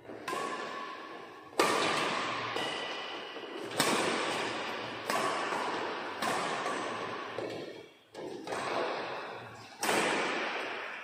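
Badminton rackets striking a shuttlecock in a fast doubles rally: about eight sharp hits, one every second or so, each echoing in the hall.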